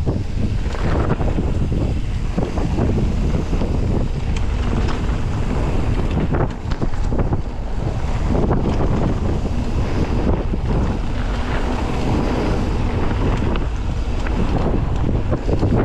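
Heavy wind buffeting the microphone on a mountain bike ride, over a steady low rumble of tyres on the trail, with many short knocks and rattles from the bike over rough ground.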